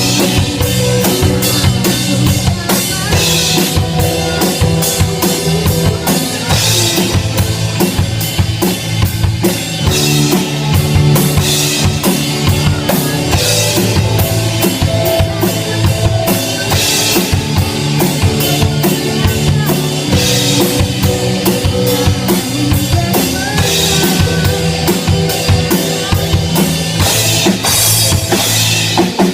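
Loud rock music with a full drum kit: a steady kick and snare beat with cymbal crashes about every two seconds, over bass and other pitched instruments.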